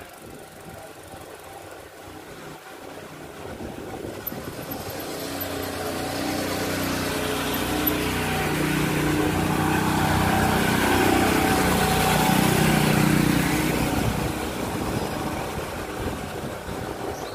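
Motorised coconut grating machine running with a steady hum. It grows louder over about ten seconds, peaks, then fades away.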